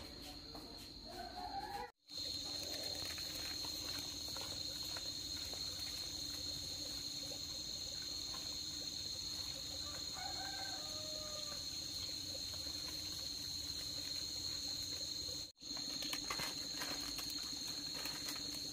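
A steady high-pitched insect drone, with a few faint chicken clucks around the middle. The sound drops out completely twice for an instant.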